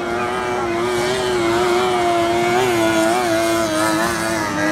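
50 hp outboard engines on tunnel-hull race boats running at high revs, a loud buzzing whine whose pitch wavers as the throttle eases and picks up again. It grows louder about a second in as the boats close in.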